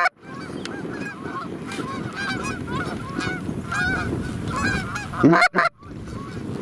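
Canada geese honking, many overlapping short calls. Two louder, closer honks come at the very start and about five seconds in, each cut off suddenly.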